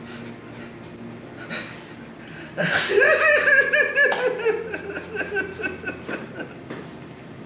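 Loud, grieving sobbing: a burst of choked, wailing cries that starts about two and a half seconds in and fades over the next few seconds.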